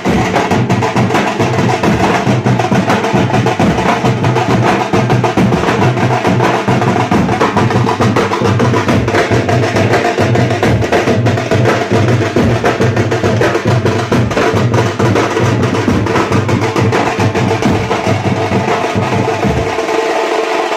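Nasik dhol and tase drums beaten together in a fast, loud, continuous rhythm, the deep dhol strokes under a dense rattle of sharp tase strokes. The deep drum drops out about a second before the end while the sharper strokes carry on.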